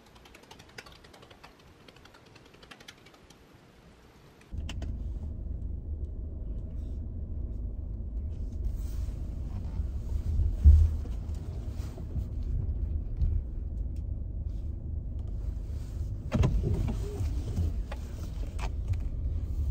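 Steady low rumble of a moving car heard from inside the cabin, with a couple of louder bumps along the way. Before it starts there are a few seconds of quiet room sound with light clicks and rustling.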